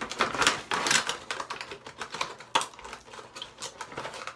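Hands handling product packaging and bottles: a run of quick clicks, taps and rustles, densest in the first second, with one sharper click a little past halfway.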